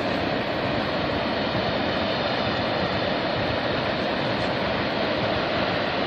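Distant freight train rolling by: a steady, even noise with no breaks.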